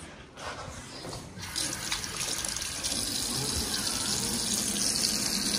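Automatic sensor faucet running water into a bathroom sink over a soaped hand, starting about a second and a half in and then flowing steadily.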